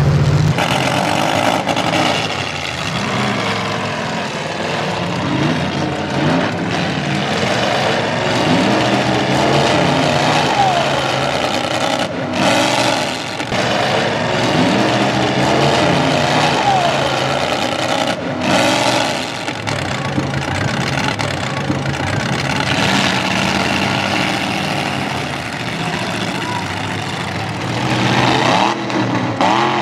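Demolition derby cars' engines revving and running throughout, over continuous arena noise.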